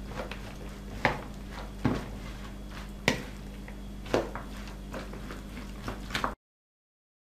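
Hands mixing sliced raw potatoes, ground meat, onion and mayonnaise in a plastic bowl: short wet squelches and taps about once a second over a steady low hum, cutting to dead silence near the end.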